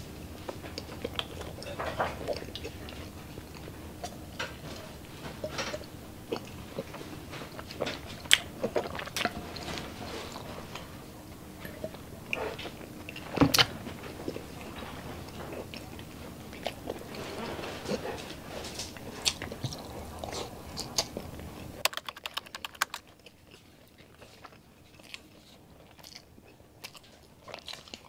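Close-miked mouth sounds of a person chewing and biting grilled street food with rice: wet smacking and crunchy snaps with sharp clicks, the loudest about 8 and 13.5 seconds in.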